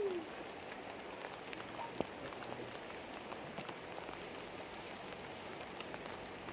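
Steady rain falling, with scattered drops tapping and one sharp click about two seconds in.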